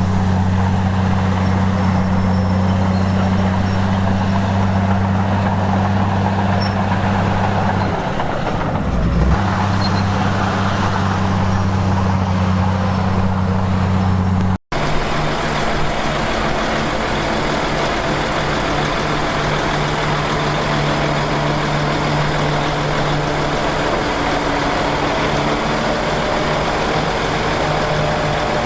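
Heavy diesel engine of earthmoving equipment running steadily under work, with a brief drop in pitch about eight seconds in. About halfway through the sound cuts off for an instant and comes back with a different steady engine note.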